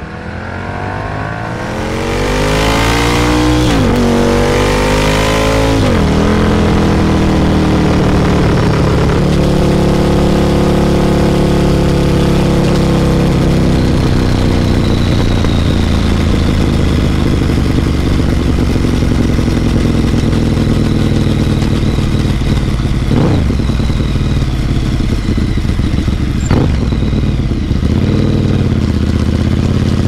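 Ducati Monster 1100 EVO's air-cooled L-twin through a Competition Werkes GP slip-on exhaust, accelerating hard with its pitch climbing and dropping at two upshifts in the first six seconds. It then runs steadily at cruising speed, with two brief dips in pitch later on.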